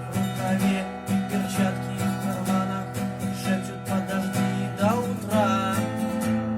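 Acoustic guitar strumming chords in a steady rhythm, with a higher note sliding upward about five seconds in.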